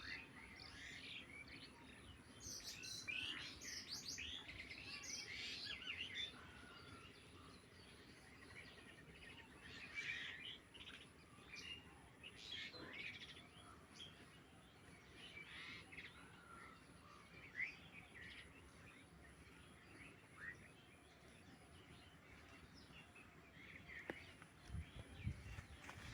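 Small birds chirping faintly, with many short high chirps coming in scattered bursts, busiest in the first few seconds. A couple of low thumps come near the end.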